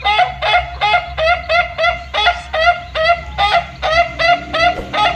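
A fowl's short honking call repeated quickly and very evenly, about three calls a second.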